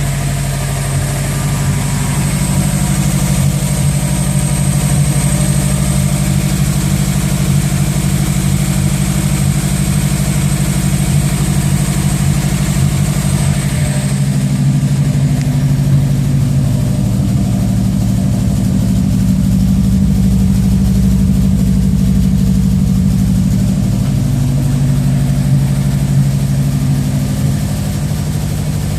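A motor the owner calls bad, running steadily at idle with a low, even hum. About halfway through the sound changes, with less hiss and a slight shift in the low tones.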